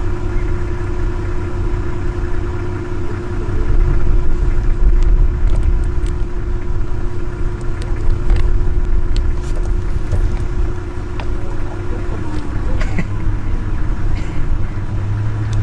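A motor vehicle's engine running steadily with a low rumble. A steady hum drops out about twelve seconds in.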